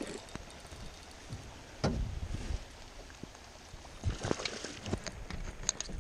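Handling noise in a small boat: several dull knocks and thuds, the clearest about two seconds in and again past the four-second mark, over a low rumble of clothing brushing against the microphone.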